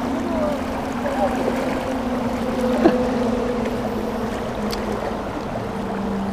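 Fast shallow river rushing over stones and weed, a steady noisy wash, with a steady low hum underneath that drops slightly in pitch near the end.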